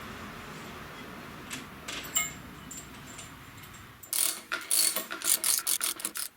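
Ratchet wrench clicking rapidly for about two seconds, starting about four seconds in, after a steady hiss broken by a few scattered clicks.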